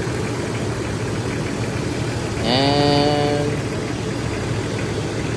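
1994 Jeep Grand Cherokee engine idling steadily while its suspected bad alternator is tested.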